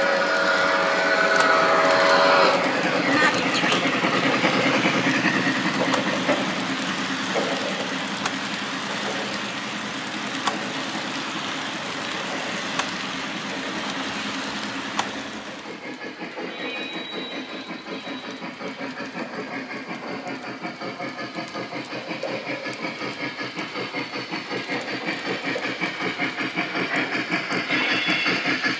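Lionel O-gauge Scale Polar Express Berkshire model steam locomotive running with its passenger cars: a whistle-like tone for the first couple of seconds, then the steady chuff and rumble of the running train with occasional sharp clicks. About halfway through the sound changes to a fast, evenly pulsing chuffing and wheel clatter.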